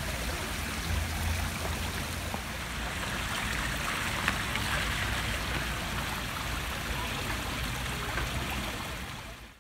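Water from a fountain's concrete upper basin pouring in a thin sheet into a shallow pool below: a steady splashing trickle that cuts off near the end.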